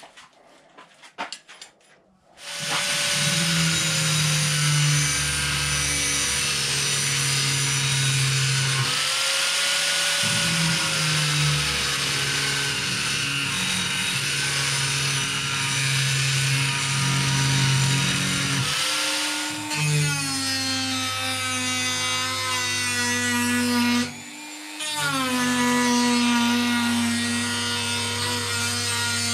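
Electric grinders grinding a steel knife blade made from an old bearing: a loud, steady motor whine with grinding hiss that starts about two seconds in. Later a smaller hand-held grinder is working the blade, and it stops briefly and spins back up near the end.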